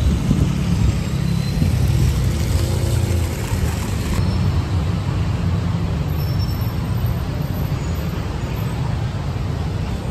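Steady city street traffic noise: a continuous low rumble of passing cars and buses.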